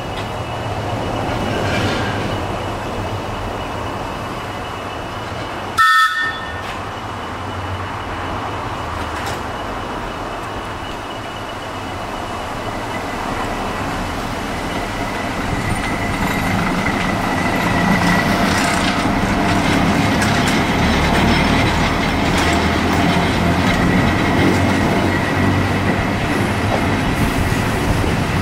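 Metropolitan Railway electric locomotive No. 12 'Sarah Siddons' (a 1923 Metropolitan electric loco) gives one short horn blast about six seconds in, a chord of several tones. It then pulls its train out, and the rumble and clatter of the train build up and get louder, with a thin high whine joining in.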